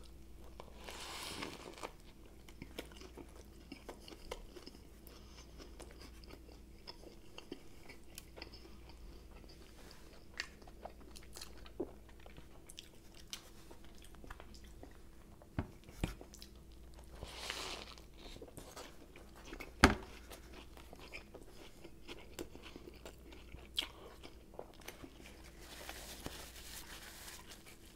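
Quiet, close-miked biting and chewing of a bread sub sandwich: soft mouth sounds with scattered small crunches and clicks over a faint steady hum, and one sharper click about two-thirds of the way through.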